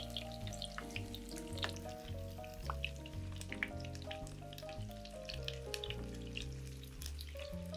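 Food frying in oil in a pan, with a steady scatter of small crackles and spits, under background music with a stepping bass line.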